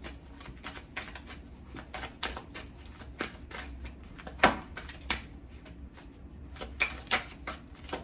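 A deck of tarot cards being shuffled hand to hand: a fast run of soft card clicks and slaps, with a sharper snap about halfway through.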